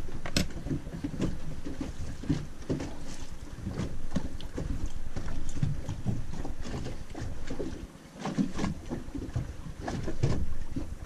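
Water lapping and slapping against the hull of a small boat, with wind buffeting the microphone and scattered small knocks and clicks.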